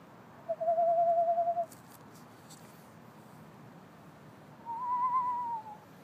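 Screech owl calling: two quavering trilled whistles, each about a second long. The first holds a steady pitch; the second comes a few seconds later, higher, rising slightly and then falling off at the end.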